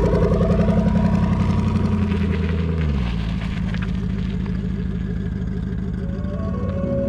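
Twin-turbo Ford Coyote 5.0 V8 in a Mustang running steadily. About three seconds in its pitch drops, and it then settles at a lower, slightly quieter note.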